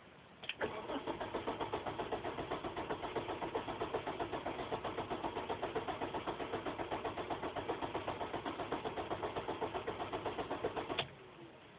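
Car's starter cranking the engine for about ten seconds in an even rhythm of about seven strokes a second. The engine turns over but never catches and stops abruptly when the key is released: a no-start that the owner thinks sounds like it isn't getting any fuel.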